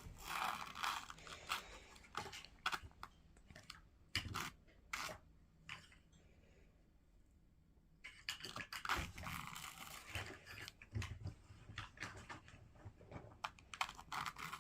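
Faint, irregular crunchy scratching and short scrapes of sticks dragged and poked through play sand in a box. It pauses for about two seconds near the middle, then starts again.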